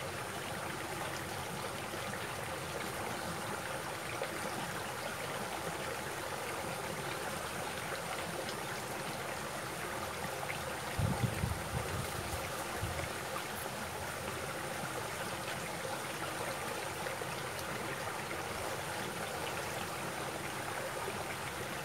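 Shallow rocky stream running steadily over stones and a small cascade, a continuous rush of water. A brief low rumble about halfway through.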